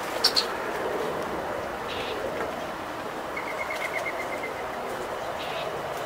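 Outdoor birds calling: a few brief high chirps and, in the middle, a quick run of about ten short even notes, over a steady low background hum. Two sharp clicks come just after the start and are the loudest sounds.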